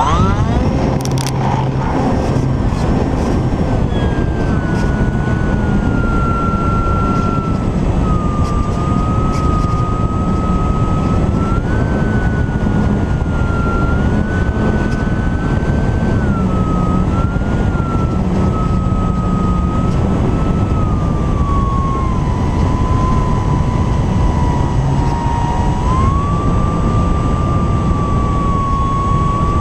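Electric motor and propeller of an Apprentice S 15e RC trainer plane, heard from a camera strapped under the fuselage. The whine rises quickly as the throttle opens for takeoff, then holds a steady high pitch that drifts up and down with the throttle in flight, over heavy wind rumble and vibration. There are a few clicks in the first couple of seconds.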